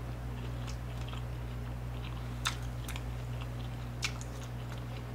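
A person chewing a mouthful of food close to the microphone: soft scattered mouth clicks, with two sharper clicks about two and a half and four seconds in, over a low steady hum.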